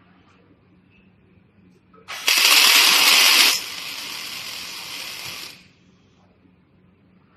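Scaffolding crossbar automatic welding machine letting out a loud, even hiss that starts suddenly about two seconds in. The hiss drops to a lower level after about a second and a half and cuts off about two seconds later, over a low steady machine hum.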